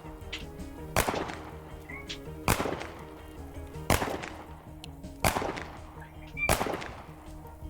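Five sharp gunshots, about one and a half seconds apart, fired at a concrete wall, over steady background music.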